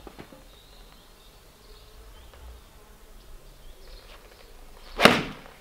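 Golf swing with a 7-iron off a hitting mat: one sharp strike of the club on the ball about five seconds in, the loudest sound. Before it, a quiet outdoor background with faint high chirps.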